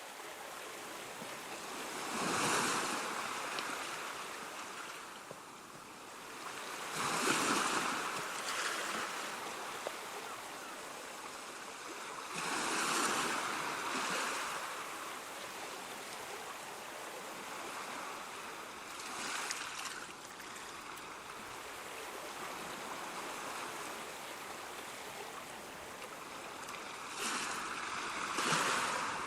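Sea waves: a steady wash of surf with five waves swelling and breaking a few seconds apart, each rising and then easing off.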